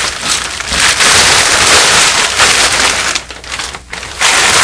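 Plastic tarp crinkling and rustling loudly as it is handled and shifted, in a long stretch from about a second in and again near the end.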